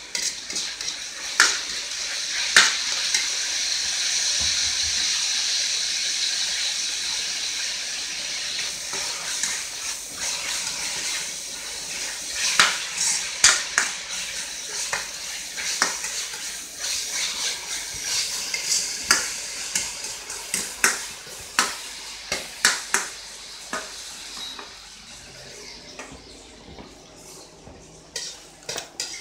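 Shredded vegetables sizzling in hot oil in a wok while being stir-fried, with a metal ladle knocking and scraping against the wok in irregular strokes. The sizzle is strongest over the first several seconds and then dies down gradually.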